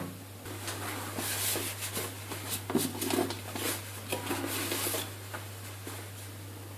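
Rag rubbing and wiping dirt out of the inside of an inline skate frame: irregular soft scrubbing strokes with a few light knocks as the skate is handled.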